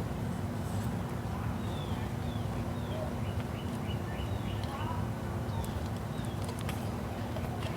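Outdoor ambience: a steady low rumble with a small bird repeatedly giving short, high, falling chirps, about two a second, and a few light clicks.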